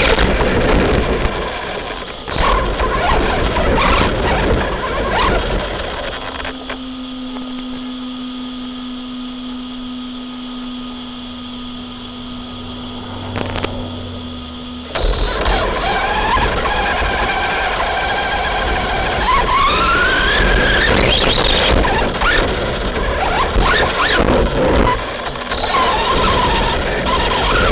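ARRMA Big Rock V3 RC truck's electric motor whining, its pitch rising and falling with the throttle, over the crunch of its tyres on rough ground. About a third of the way in it goes quieter for several seconds with only a steady low hum, then the whine comes back loud and climbs in pitch.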